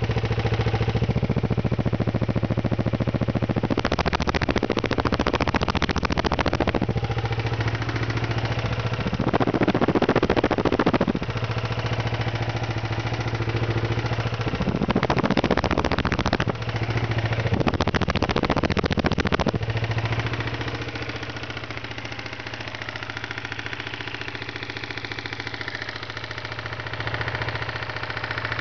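1992 Kawasaki Ninja 250's parallel-twin engine running, revved up four times in short surges, then settling to a quieter idle from about two-thirds of the way in. The owner takes the engine to have bad rod bearings.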